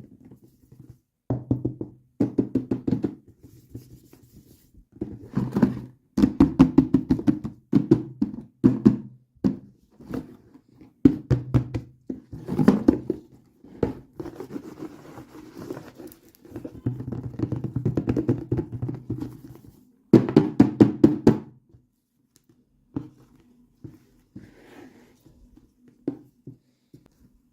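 Hands handling toy packaging: repeated bursts of rapid tapping and scratching clicks, each lasting a second or two, with short gaps between. The bursts thin out to a few scattered taps near the end.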